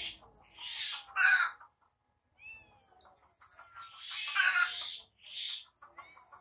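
A cat meowing: short calls in two groups, a pair about a second in and more from about four seconds in, with a faint high chirp between them.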